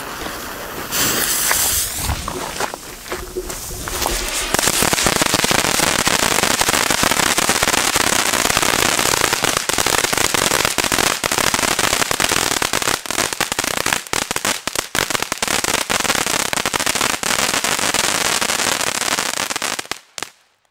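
Two Broeckhoff Titanium Thunder crackling ground fountains going off. A hiss as they catch, then from about four seconds in a loud, dense spray of crackling. It stops suddenly near the end.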